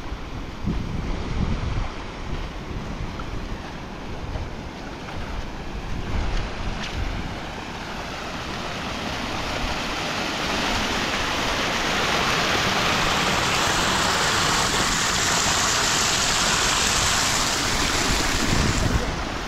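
Muddy floodwater rushing and splashing over rocks and earth, growing louder about halfway through and then holding steady. Wind buffets the microphone in the first part.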